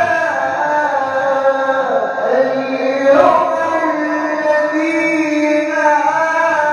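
A male qari reciting the Quran in melodic tilawah style into a handheld microphone: long held notes that slide slowly between pitches.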